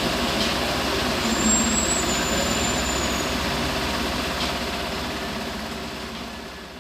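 Heavy diesel engine of earthmoving machinery running steadily, with a couple of faint knocks; the sound slowly fades over the last few seconds.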